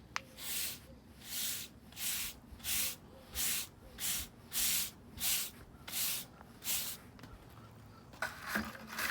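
About ten even scraping strokes, roughly one and a half a second, of a hand tool spreading Portland cement and sand slurry over old concrete; the strokes stop about seven seconds in.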